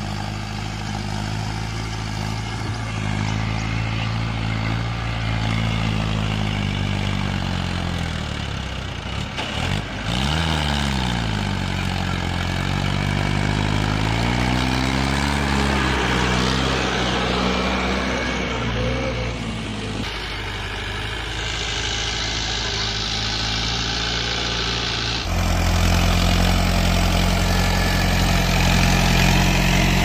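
Diesel farm tractor engine running under load as it pulls a trailer heaped with mud. Its pitch rises and falls a few times around the middle. Near the end the engine sound jumps suddenly louder and deeper.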